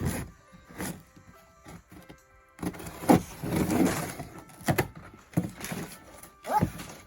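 A cardboard package being handled: a few knocks and a longer rustling scrape, with faint music underneath.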